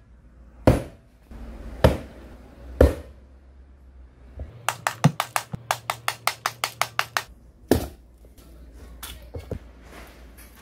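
Hard knocks and tapping on an angle grinder's motor housing as the field coils are freed from it. Three single knocks about a second apart, then a quick run of taps at about six a second for some three seconds, then one more hard knock and a few light ones.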